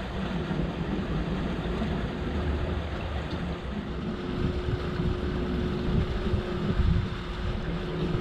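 Wind rumbling and buffeting on the microphone over a steady background of outdoor noise, with a constant mid-pitched hum, typical of pumps or water running in a fish-hatchery raceway.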